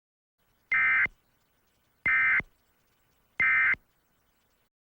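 Three short bursts of Emergency Alert System digital data tones (SAME), each a brief buzzy warble, spaced about a second and a half apart: the End of Message signal that closes an EAS alert.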